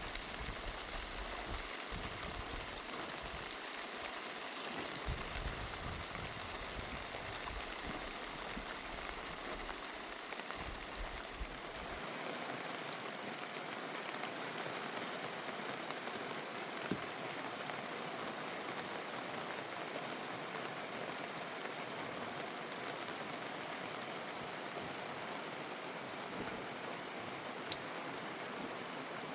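Steady heavy rain falling, an even patter throughout. A low rumble underneath stops about twelve seconds in, and there are a couple of single sharp ticks near the end.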